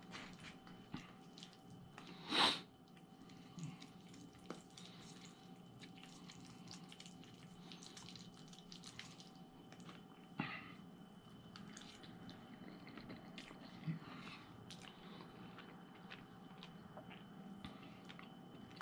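Quiet eating sounds: spaghetti being chewed, with small taps and scrapes of a plastic fork in a cardboard takeout tray. One short, louder rustling burst about two and a half seconds in stands out above the rest.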